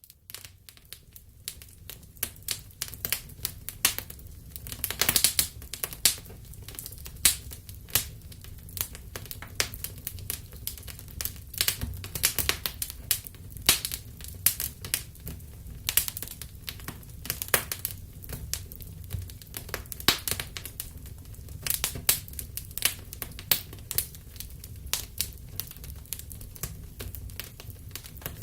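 Wood fire in a fireplace crackling: irregular sharp pops and snaps over a steady low rumble of burning.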